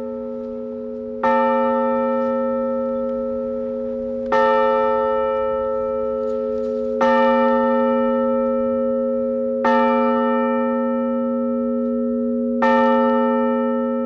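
Large bronze McShane fire bell tolled slowly by a rope pulled on its clapper: five strikes about three seconds apart, each ringing on and fading. It is a memorial tolling for a firefighter who died in the line of duty.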